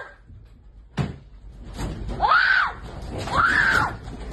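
A person screaming in fright during an earthquake: two drawn-out high screams, each rising then falling in pitch. A single sharp bang comes about a second in.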